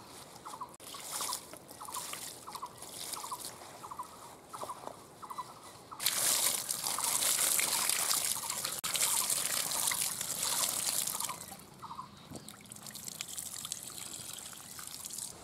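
Freshly picked jute leaves being rinsed by hand in a plastic basket: water splashing and dribbling through the wet leaves. From about six seconds in, a steady stream of water is poured over them for about five seconds, then the quieter splashing and dripping return.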